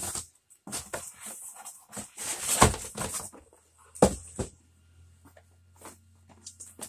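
Cardboard boxes and packaging being handled: rustling and scraping with a couple of sharp knocks, the loudest a little past the middle. It then goes quiet apart from a faint low hum.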